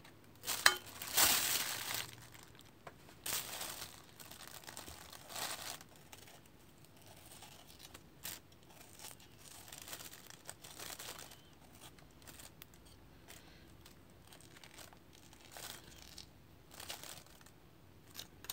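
Orange peel being cut with a knife and torn off by hand, with a plastic bag crinkling. The rustling and tearing come in bursts, loudest in the first two seconds and again around four to five seconds in, then quieter and scattered.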